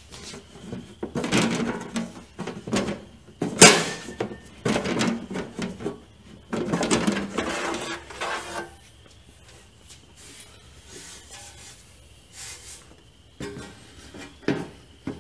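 Sheet-metal outer cover of a plasma cutter being worked loose and slid off its case: metal scraping and rubbing in several stretches over the first nine seconds, with a sharp clack about three and a half seconds in. After that come a few light knocks.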